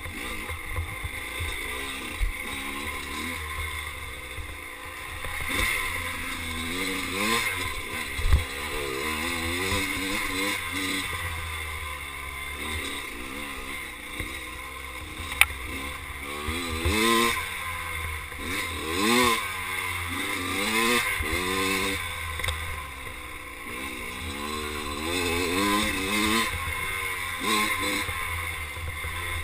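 Kawasaki KX dirt bike's single-cylinder engine revving up and down with the throttle as it is ridden along a wooded trail, its pitch rising and falling every second or two. A few sharp knocks come through, the loudest about eight seconds and fifteen seconds in.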